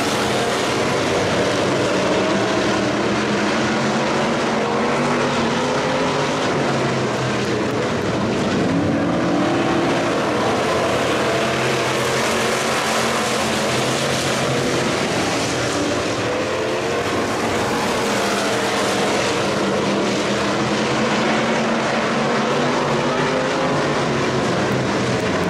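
A pack of Factory Stock dirt-track race cars running at race speed, several engines overlapping with pitches rising and falling as the cars lift and accelerate through the turns, over a steady rush of noise from the field.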